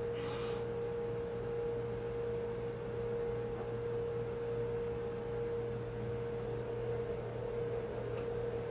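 A steady background hum: one unchanging mid-pitched tone over a lower drone, with a brief soft hiss just after the start.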